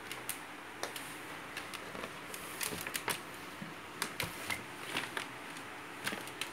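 An Asian water monitor's claws clicking and scratching on the plastic grid floor and walls of a plastic tub as it clambers about, giving irregular sharp taps.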